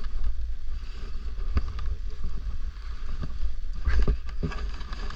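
Wind buffeting the camera's microphone as a steady low rumble, with a few short knocks about a second and a half in and around four seconds.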